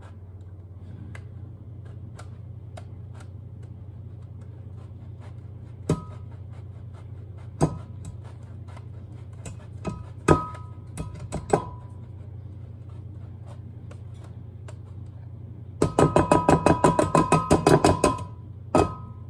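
A kitchen knife slicing a block of cheddar cheese, each cut ending in a knock on a hard surface with a short ringing tone. A few separate cuts come first, then a quick run of cuts near the end, over a steady low hum.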